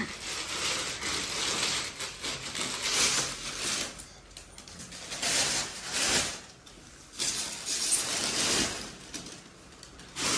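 Plastic wrapping and foam sheeting rustling and crinkling as it is pulled off a new flat-screen TV by hand, in a string of uneven swishes that are loudest a little past halfway.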